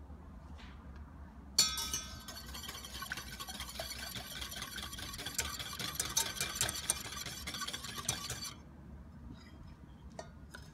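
A small whisk stirring milk and cocoa powder in a stainless steel saucepan, metal rattling and scraping quickly against the pan. It starts with a sharp clink about a second and a half in and stops about two seconds before the end.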